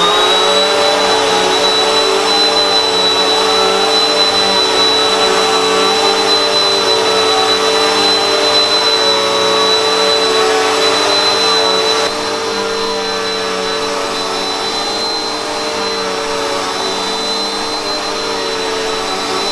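Bissell PowerForce Helix upright vacuum cleaner running: the motor comes up to speed at the start and holds a steady high whine over a steady hum. It gets a little quieter about twelve seconds in.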